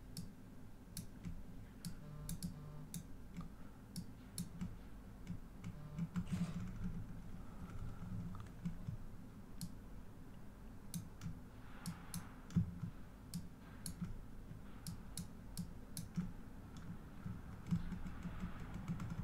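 Scattered, irregular clicks of a computer mouse and keyboard over a low background hum.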